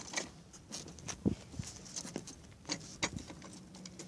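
Footsteps scuffing on gravelly asphalt and an electric unicycle being handled and stepped onto: scattered light clicks, knocks and scrapes over a faint steady low hum.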